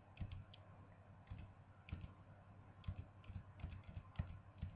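Faint, irregular clicks of computer keys being pressed, a dozen or so, each with a soft low thump, over a low steady hum.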